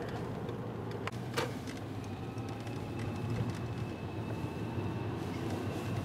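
Steady engine and road rumble heard from inside a moving car, with two sharp clicks a little over a second in.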